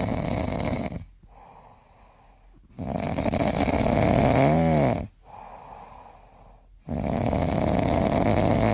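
Loud snoring: three long, rasping snores about four seconds apart. The middle snore carries a brief tone that rises and then falls.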